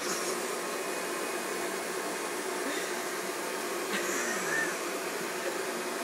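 Stick vacuum cleaner running steadily on carpet, sucking up spilled baby powder. A brief voice sound rises and falls about four seconds in.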